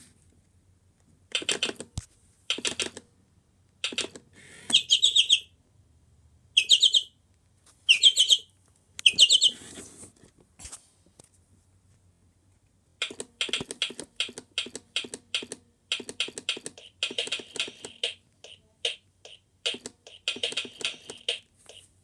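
Recorded songbird chirps playing from a novelty birdhouse toy's small speaker: several short groups of sweeping chirps, a pause, then from about 13 s a long run of quick chattering notes.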